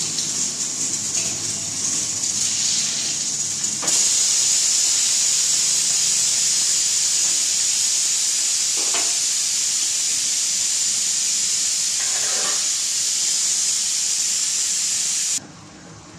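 Oil sizzling in a kadai on a gas stove as food is fried and stirred: a steady high hiss that gets louder about four seconds in and cuts off suddenly near the end.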